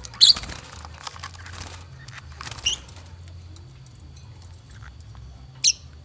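Caged lovebirds giving three short, shrill chirps: one right at the start, one near the middle and one near the end, over a low steady hum.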